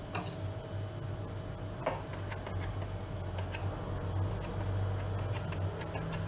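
Faint handling sounds: a few soft taps and light clicks as strips of chocolate sponge cake are moved and patted down on a metal baking tray, over a steady low hum.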